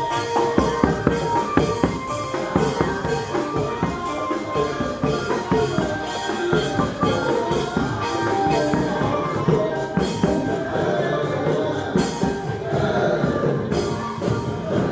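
Festive music with a driving drum beat, many quick drum strokes under pitched melodic instruments.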